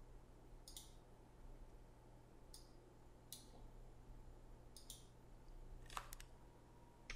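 Faint computer mouse clicks, about half a dozen, some in quick double-click pairs, over near-silent room tone.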